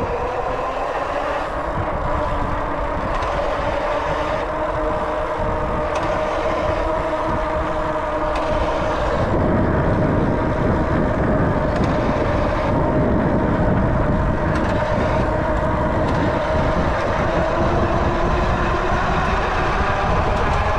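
Steady vehicle noise: a continuous rumble with a droning tone, growing heavier about halfway through.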